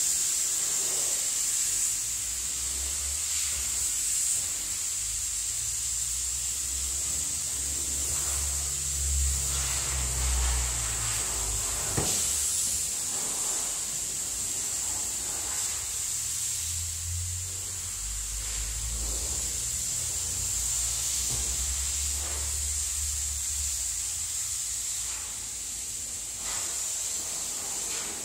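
Steady high hiss of air moving through a spray-paint booth, with a low rumble that comes and goes.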